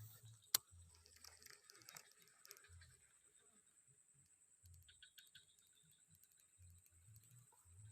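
Near silence, with faint low thumps, scattered soft ticks and one sharp click about half a second in.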